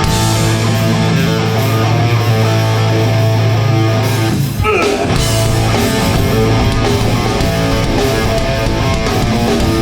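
Hardcore punk band playing live, loud distorted electric guitar, bass and drums. A held low bass note runs under the first half, the music breaks off briefly about halfway through, then the full band drives on.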